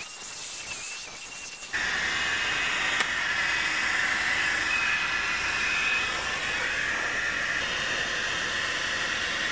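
Cooling fan of a Le Duo curling-and-straightening hair styler blowing a steady hiss. It steps up suddenly to a louder hiss a couple of seconds in.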